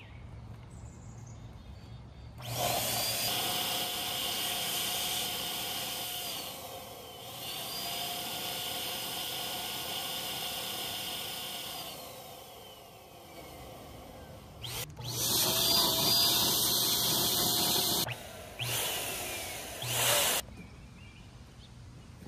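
Small electric air pump inflating a vinyl inflatable kayak through a hose, its motor whine sagging and recovering in pitch as the load changes. It runs for about eleven seconds, stops, then runs twice more briefly.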